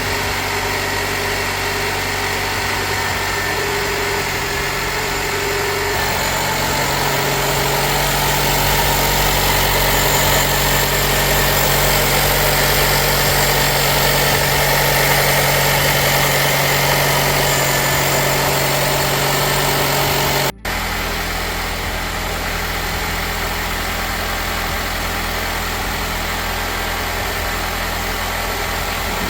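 Nissan Qashqai's freshly installed replacement engine idling steadily and smoothly after an engine change. About two-thirds of the way through the sound drops out for an instant, and the idle note after it sits lower.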